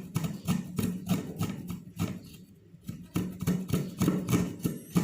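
Fresh ginger being grated on a hand grater: a quick, fairly even run of rasping strokes, with a short pause a little past the middle.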